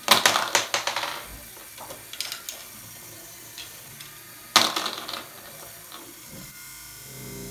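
Small plastic Lego balls clattering into a plastic bowl as a Lego GBC module's arm tips them out: one burst at the start and another about four and a half seconds in, with a few lighter clicks between.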